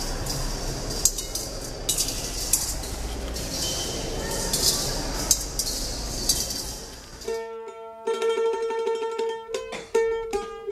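Coins dropped one at a time into a row of metal bowls, each landing with a bright ringing clink, roughly once a second, over a low hum of the hall. About seven seconds in, the clinks stop and plucked-string music begins.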